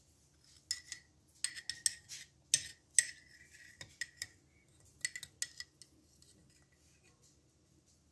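A metal spoon clinks against a ceramic mug in quick, irregular taps as cocoa powder and milk are mixed; some of the louder hits ring briefly. The taps start under a second in and stop about six seconds in.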